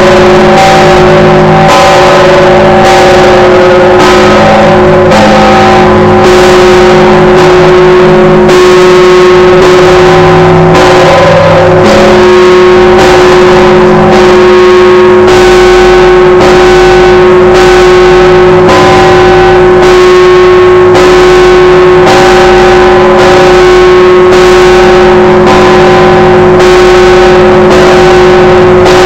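Russian Orthodox bell ringing, very loud: several church bells struck in a quick, steady rhythm over the long ringing hum of a heavy bell, the 7,150 kg 'All Saints' cathedral bell.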